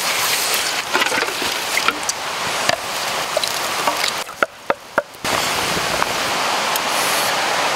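Liquid boiling hard in a wok over a wood fire, a steady sizzling hiss with scattered sharp pops and crackles. It drops away briefly about four and a half seconds in, then comes back as a steady boiling hiss.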